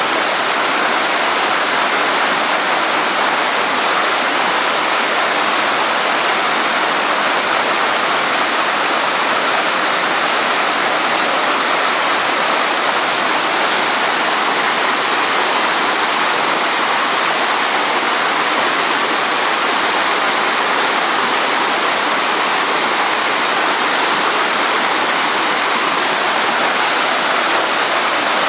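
Fast-flowing water rushing steadily, an even unbroken hiss with no let-up.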